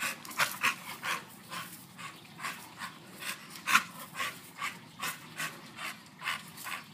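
A dog panting hard after exertion, quick rhythmic breaths at about three a second.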